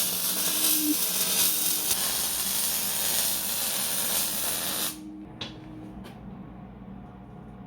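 Loud steady hiss that cuts off abruptly about five seconds in, leaving a quieter steady hum.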